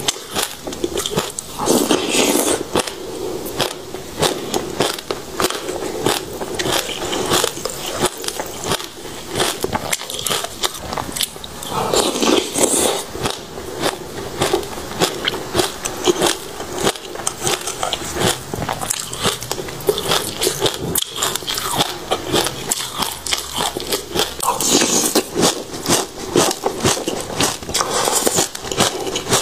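Chewing and crunching passion fruit seeds: a dense, continuous stream of small crisp cracks and crackles, with a few heavier stretches.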